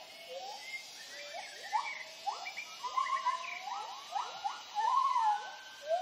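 Gibbons' territorial hooting call: a chorus of repeated rising whoops, several voices overlapping, with a faint steady high hiss behind.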